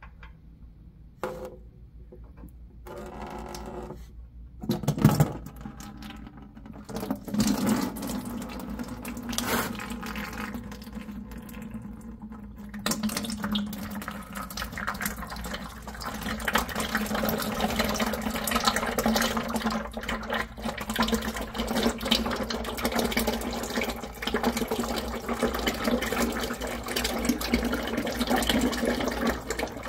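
Used engine oil pouring from the oil pan drain into a plastic 5-gallon bucket, a steady splashing pour that starts about seven seconds in. Before it, a few knocks as the drain plug is worked loose, the loudest about five seconds in.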